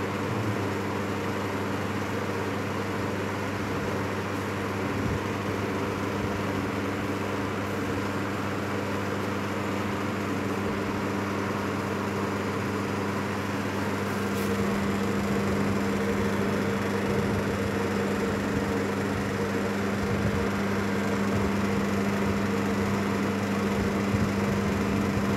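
Steady machine hum of a running plasma treatment setup, a low even drone with a noisy wash over it; a tone in the drone grows stronger about halfway through.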